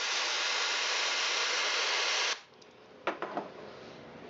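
Compressed air at about 130 psi hissing from a blow gun through a Honda GX270 carburetor's main jet and emulsion tube passages, blowing out old fuel residue, for a little over two seconds before cutting off sharply. A couple of light clicks follow.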